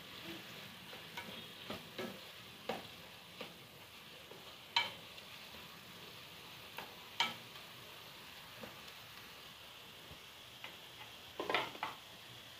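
Chicken and vegetables sizzling faintly in a nonstick kadai while a spatula stirs and scrapes them, knocking against the pan at irregular moments; the loudest knocks come about five and seven seconds in, with a quick run of scrapes near the end.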